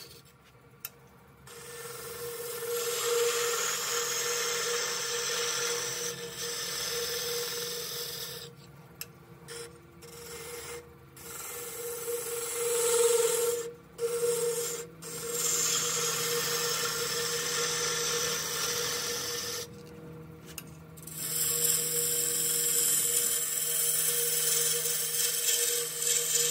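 Wood lathe running with a steady hum while a hand-held turning tool cuts a spinning spindle of dry tea tree (melaleuca) wood. The cutting makes a hissing, rasping sound in several long passes, with brief pauses as the tool is eased off the wood.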